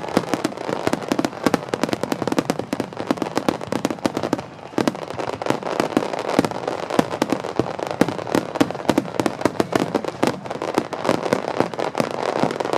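Fireworks display: a rapid, dense barrage of overlapping bangs and crackles, with a brief lull about four and a half seconds in.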